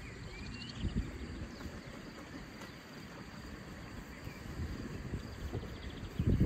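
Outdoor ambience: a low rumble with a few faint, short high chirps. Near the end a single knock as a filled glass jar is set down on a wooden table.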